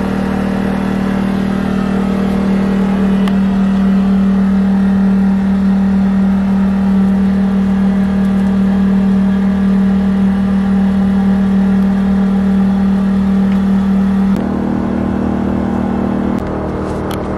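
A motor running steadily with a loud, even hum; its sound changes abruptly about fourteen seconds in.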